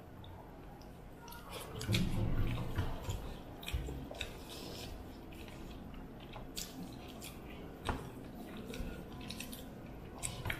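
Eating sounds of rice and fish being eaten by hand from steel plates: chewing and wet squishing as fingers mix the rice, with scattered small clicks and taps on the plates. A brief louder low sound comes about two seconds in.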